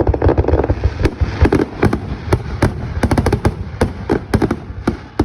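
Fireworks display: a rapid, continuous barrage of aerial shell bursts, several sharp bangs a second over deep low booms.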